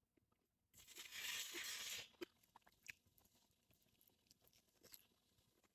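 Close-up chewing of boiled cabbage: a brief hissy, crunchy burst about a second in, then faint scattered mouth clicks.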